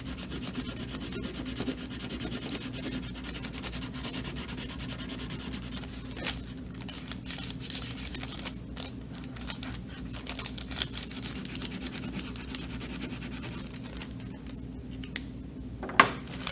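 Felt-tip marker rubbing back and forth on a paper bag as it colors in an area, a steady run of quick scratchy strokes over a low hum. There is one sharp click near the end.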